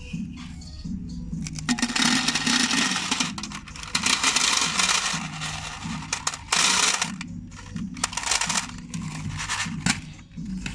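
Small hard colourful pieces poured from a clear plastic cup into a paper bowl, rattling and clattering in several pours of about a second each. Faint background music runs underneath.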